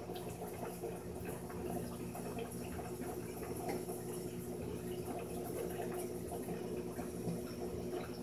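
Water trickling and bubbling steadily over a low, even hum, with a few faint ticks, typical of aquarium equipment running.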